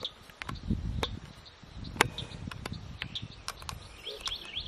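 Outdoor swamp ambience: scattered short bird chirps, a quick run of them near the end, over a low rumble. A few sharp clicks or knocks are heard, the loudest about two seconds in.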